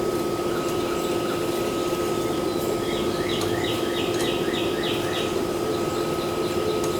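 A bird singing a quick run of repeated falling chirps, about three a second, between roughly three and five seconds in, over a steady hum.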